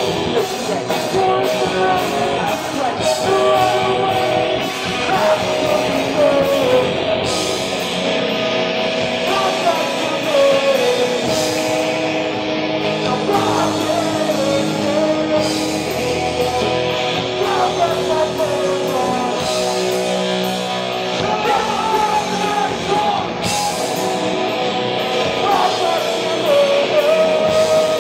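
A live rock band playing: distorted electric guitars, bass and drums, with a vocalist singing over them.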